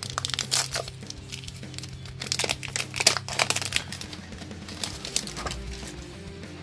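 Foil trading-card booster pack wrapper crinkling and being torn open by hand, busiest in the first four seconds, over steady background music.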